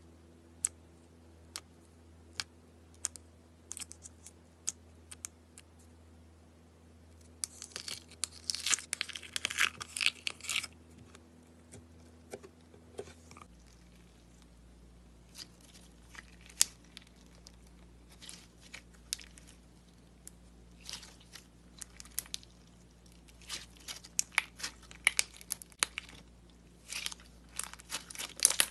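Slime being squeezed and stretched by hand, giving sharp clicks and pops, with a dense run of crackling about eight to ten seconds in and more frequent pops near the end.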